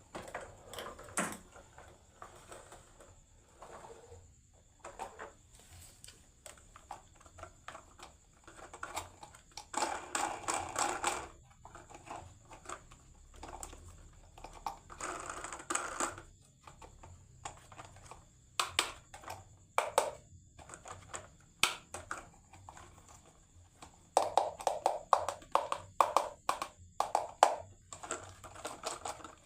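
Marbles rolling down a marble run, clicking and knocking against the track. There are scattered sharp clicks, with bursts of quick clattering about ten seconds in, again around fifteen seconds, and steadily from about twenty-four seconds to the end.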